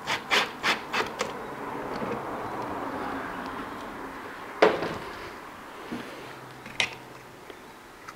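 A quick run of short clicking bursts from a cordless drill/driver on a fastener of the engine's air intake, then soft rubbing and handling noise, with one sharp knock about four and a half seconds in and a smaller one near seven seconds.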